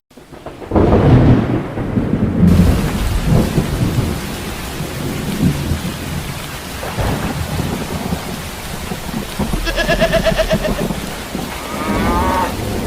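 Thunder rumbling over steady rain, loudest in the first few seconds, with a cow mooing once about ten seconds in.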